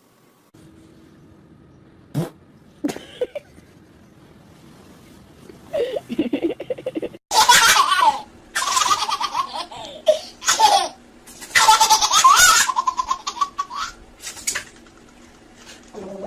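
A baby laughing in several loud fits of high, squealing laughter, starting about six seconds in and broken by short pauses.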